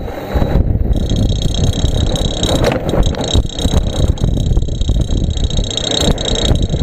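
Electric scooter hub motor running with a steady high whine over a rough, uneven rattling rumble. This is an abnormal noise that the mechanic traces to the motor's end cover.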